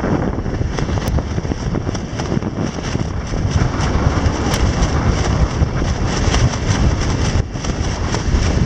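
Strong gusty wind buffeting the microphone: a loud, rumbling noise that swells and eases with the gusts.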